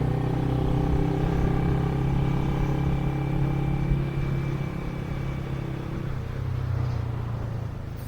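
A motor vehicle engine running steadily with a low hum and a faint high whine, fading gradually over the second half.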